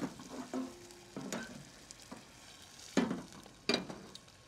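A metal pan being set on a gas stove's grates, knocking sharply a few times, the loudest about three seconds in, over a faint steady sizzle from a pot on the stove.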